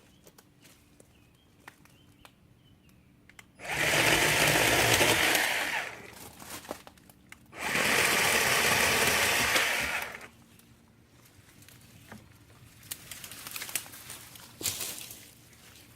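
WORX 40-volt battery chainsaw's electric motor and chain running in two bursts of about two seconds each, a couple of seconds apart.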